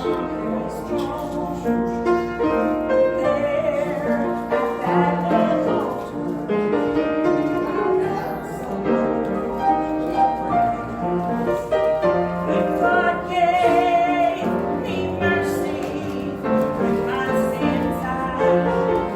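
Piano playing with a voice singing along: church hymn music.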